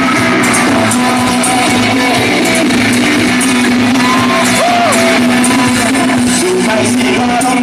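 Rock band playing live, guitars to the fore over a steady backing, with singing faintly mixed in.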